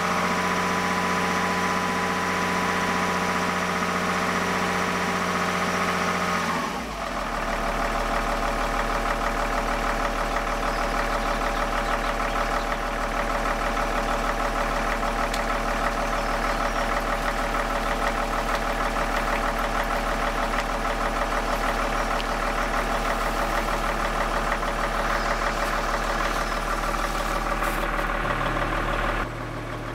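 Opel Omega B 2.5 DTI's Y25DT inline-six common-rail turbodiesel (BMW M57-based) idling cold, heard at the tailpipe. About seven seconds in, the idle note drops suddenly in pitch and then settles into a steady, lower idle. Just before the end the sound gets quieter and its tone changes.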